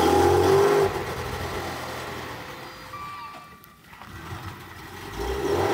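Maserati Levante's electric parking brake being worked, heard as a low steady hum from the car, with a couple of short electronic tones near the middle.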